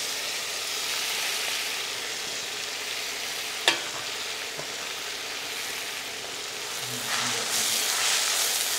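Chopped fenugreek leaves sizzling in hot oil in a stainless-steel kadhai, with one sharp tap about three and a half seconds in. From about seven seconds a spatula stirs and tosses the leaves in the pan, and the sizzle grows louder.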